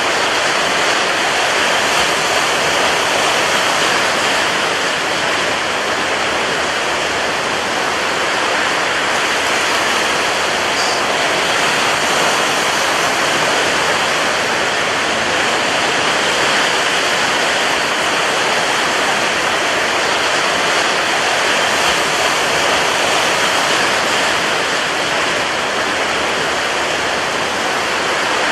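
Rough sea with strong wind: a steady, dense roar of surf, with no separate wave breaks standing out.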